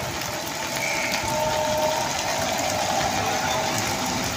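Ashok Leyland bus driving through standing floodwater, its wheels sloshing and splashing water while the engine hums steadily; it grows louder about a second in as the bus draws alongside.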